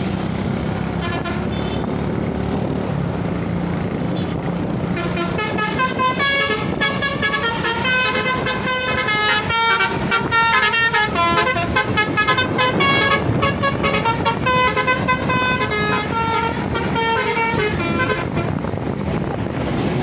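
A Basuri V3 telolet musical horn on a coach plays a quick tune of stepping multi-note toots. It starts about five seconds in and stops near the end, over steady road noise.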